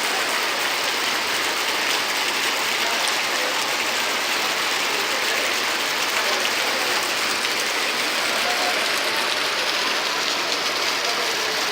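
Steady, even rushing of water from a monsoon flash flood under heavy rain, with no breaks or single events standing out.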